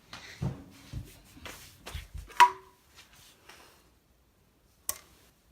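A plate and other small objects being handled and set down, with scattered knocks and rubbing. The loudest sound is a sharp clink about two and a half seconds in that rings briefly, and there is another click near the end.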